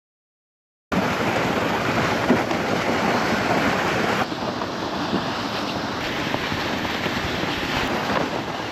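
Loud, steady rushing wind buffeting the microphone outdoors on open ice, starting suddenly about a second in, with abrupt changes in tone at cuts partway through.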